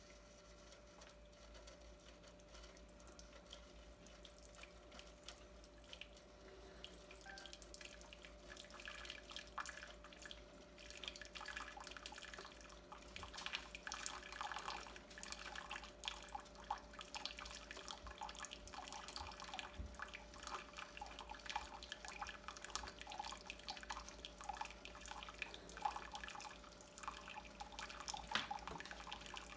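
Keurig K-Express single-serve coffee maker running a cleaning brew without a pod. Water begins to trickle and splash into a glass measuring jug about seven seconds in and grows louder from about thirteen seconds, over a faint steady hum. The whole brew is quiet.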